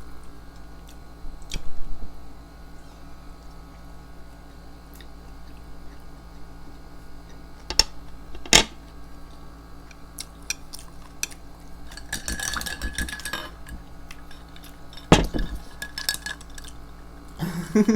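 Eating utensils clinking and tapping against dishes and food containers during a sushi meal. The scattered sharp clicks and knocks include two close together about eight seconds in and one near fifteen seconds, with a short rustle in between.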